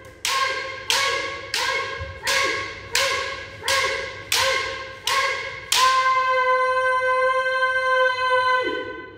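A fast series of about nine bamboo shinai strikes, each with a short kiai shout, roughly one every two-thirds of a second. From about six seconds in, one long drawn-out kiai is held for about three seconds and drops in pitch as it ends.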